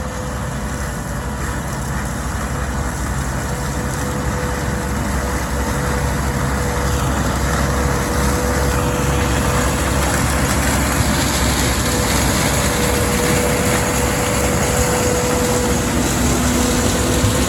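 Heavy diesel farm machinery running steadily and growing gradually louder, with a steady whine throughout.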